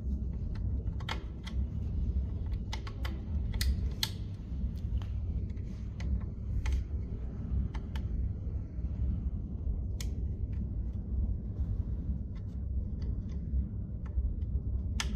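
Small plastic wire-harness connectors being pushed into the sockets of a battery BMS board: irregular short clicks and ticks over a steady low hum.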